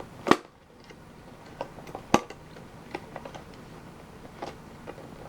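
Small metal mini tin being worked at to get a stuck lid open: scattered clicks and taps, with two sharp knocks, one just after the start and one about two seconds in.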